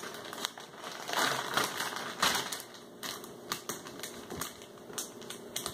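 Clear plastic baggie crinkling and crackling in short, irregular clicks as a lump of slime is stuffed into it and the bag is handled.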